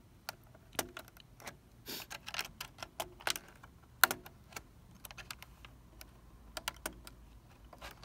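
Razor blade clicking and scraping against the plastic edge of a Dell Inspiron 3558 laptop keyboard as its small retaining clips are pried loose. Irregular small clicks and ticks, with a sharper click about four seconds in.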